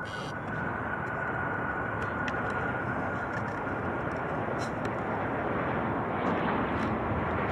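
Jet airliner engines running; the noise grows gradually louder, with a steady high whine that fades out after about five seconds.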